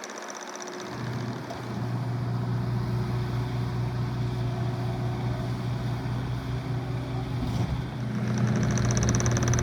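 Case TR310B compact track loader's diesel engine running with a steady hum. The sound comes in about a second in and grows louder near the end.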